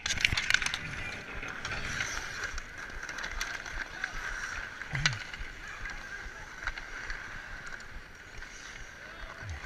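Ice hockey faceoff and play on outdoor ice: a quick flurry of stick and puck clacks in the first second, then a steady hiss of skate blades scraping the ice with occasional stick taps.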